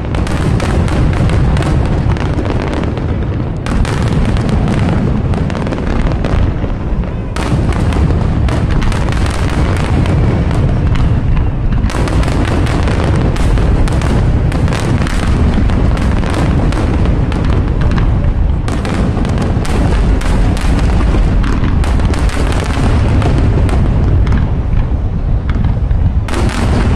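Fireworks display in a dense barrage: many shells bursting in quick succession, booms blending into a continuous low rumble with sharp crackling reports on top.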